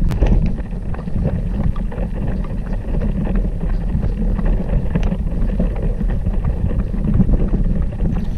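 Wind rumbling on the microphone of a handheld camera carried by a man on the move, with scattered handling knocks.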